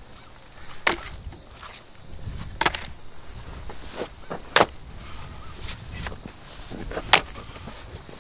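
Four heavy, sharp strikes of a hand digging tool into hard, tough soil, a couple of seconds apart, with lighter knocks between them.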